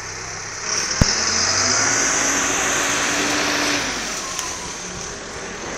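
A motor vehicle passing close by on the road: engine and tyre noise swell about a second in, hold for about three seconds and fade away. A sharp click comes near the start of the swell.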